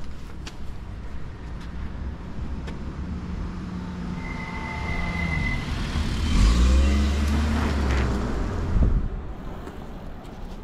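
A car passing close by on a street, building up from about three seconds in, loudest around six to eight seconds in, then fading away.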